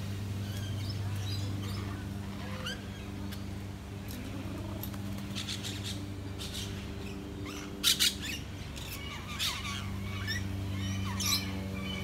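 Mixed aviary birds chirping and squawking, with a pair of harsh screeches, the loudest sounds, about eight seconds in and more sharp calls after. A steady low hum runs underneath.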